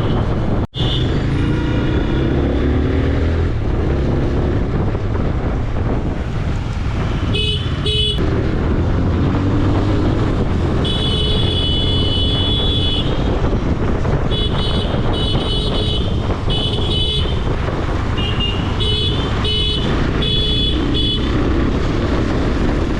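Riding a motorcycle in traffic: steady engine and wind rumble, with a vehicle horn honking in short toots from about seven seconds in, including one long blast of about two seconds.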